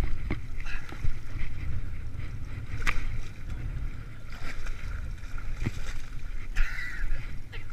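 Steady low rumble of a fishing boat on the water, with a few scattered knocks from gear being handled on the deck.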